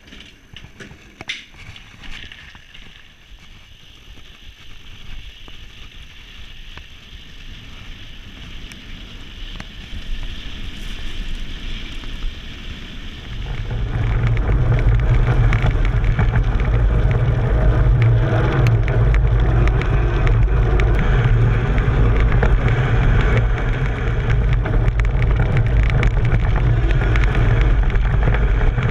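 Quiet rattles and clicks inside a moving train car. About halfway it cuts abruptly to a loud, steady rumble of wind and tyre noise from a mountain bike on studded Schwalbe Ice Spiker Pro tyres descending a snowy toboggan run fast.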